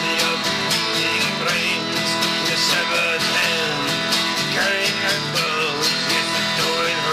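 A man singing a rock song to a strummed Epiphone acoustic guitar, steady chords under a wavering vocal line.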